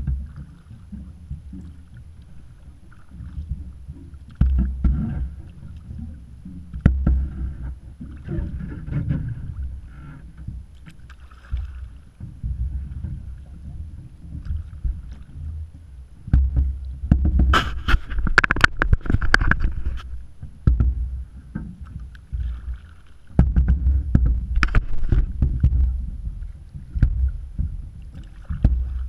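A kayak being paddled: paddle strokes splashing and water slapping against the hull. Gusts of wind rumble on the microphone, heaviest about two-thirds of the way through.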